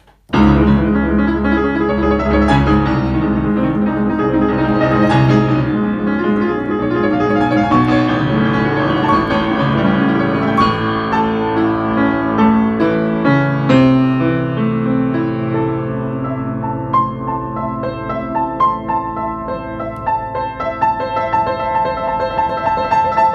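Upright piano played solo: dense chords over deep bass notes begin just after the start. In the second half the playing settles into an even, repeated pattern of higher notes.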